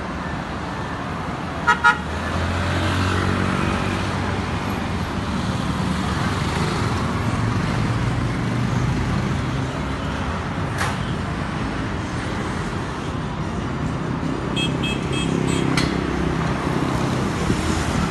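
Two short horn toots about two seconds in, then a motorcycle engine running steadily amid street traffic.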